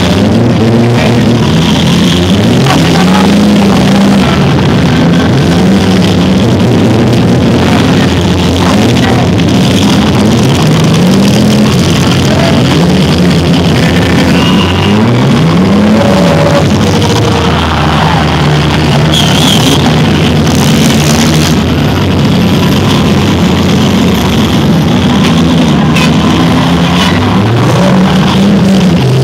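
Loud demolition derby with several four-cylinder car engines revving up and down over each other, and rock music playing at the same time. A couple of sharp bangs come about two-thirds of the way in.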